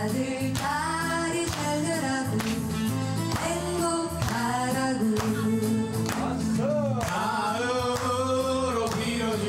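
Karaoke singing: a woman and then a man sing a song into a microphone over a backing track with a steady beat.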